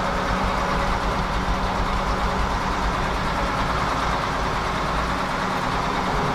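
Engine of a farm vehicle running steadily while hauling a load of grain: a steady drone with a faint high whine above it.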